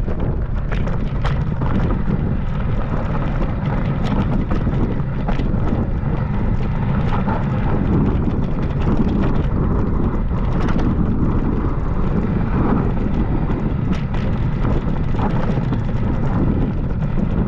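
Mountain bike descending a loose gravel and stone track: a steady low rumble of wind buffeting the microphone, with tyres crunching over the stones and the bike rattling in frequent sharp clicks.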